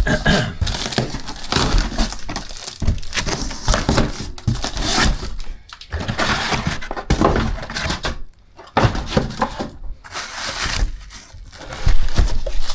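A cardboard box being cut and torn open and its packing pulled out: irregular tearing, crinkling and scraping of cardboard and packaging, with short pauses.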